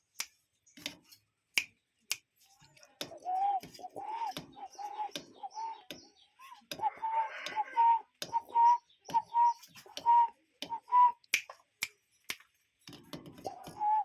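A cuckoo calling a rapid series of short repeated notes, about two a second, creeping slightly higher in pitch as the run goes on. The notes start about three seconds in, pause briefly midway and start again near the end. Sharp clicks sound all the way through.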